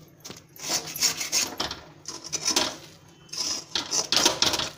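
A spatula scraping and stirring thick coconut laddoo mixture around a steel kadhai: a series of rasping strokes, about one a second.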